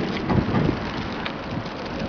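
Wind buffeting the microphone: a steady rush of noise with irregular low gusts.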